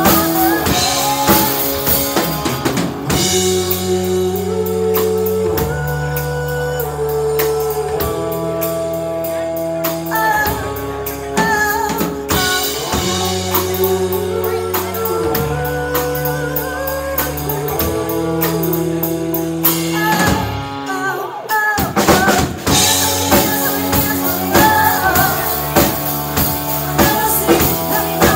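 Live rock band playing: two women singing with electric guitar, bass guitar and a drum kit. The drums and cymbals drop out for about a second past the twenty-second mark, then the full band comes back in.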